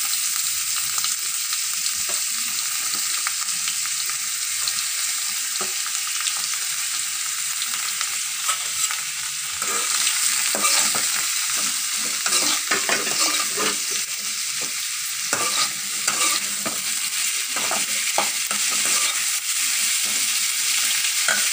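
Chopped onions frying in hot oil in a metal kadai, a steady sizzle. From about ten seconds in, a slotted metal spoon stirs them through the pan with irregular scraping strokes.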